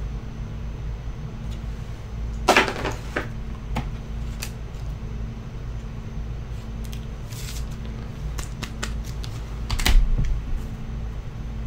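Scattered clicks and light knocks from trading cards and their packaging being handled on a table, a small cluster about two and a half seconds in and another near the end, over a steady low hum.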